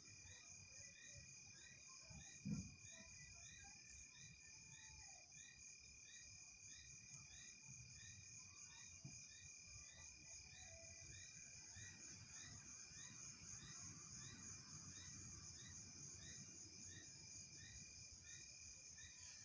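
Faint chorus of crickets: a steady high trill with a regular chirp about one and a half times a second, over a steady high tone. One brief low thump about two and a half seconds in.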